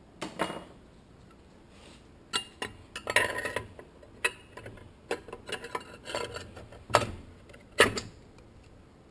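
Metal-on-metal clinks and knocks as an aluminum plate is fitted and seated into an aluminum Toyota A340 automatic transmission case: a string of sharp separate clinks, the loudest about three, seven and eight seconds in.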